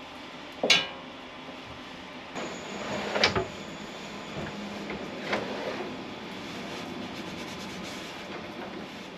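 A metal-sided kitchen cabinet drawer being fitted and slid onto its runners. There are a few sharp metal clicks and knocks, roughly two seconds apart.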